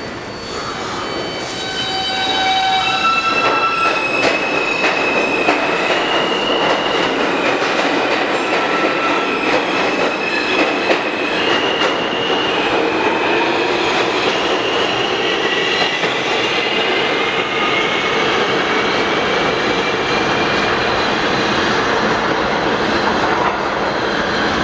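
R160A subway train running on the rails, with a steady rumble and clatter from the wheels and several high-pitched wheel squeals in the first half. A faint whine rises in pitch past the middle.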